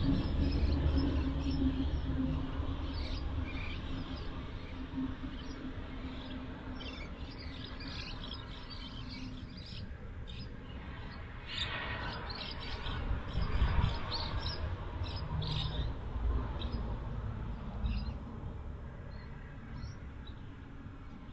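Small birds chirping and twittering in short, scattered calls, over a low steady rumble that fades away over the first few seconds. A louder noise comes about twelve to fourteen seconds in.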